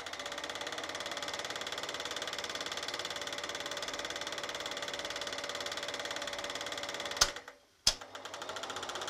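Sankyo Dualux 1000 8 mm film projector running, its mechanism clattering in a fast, even rhythm over a steady motor whine. About seven seconds in it cuts out with a click and dies away, then starts again with a second click under a second later.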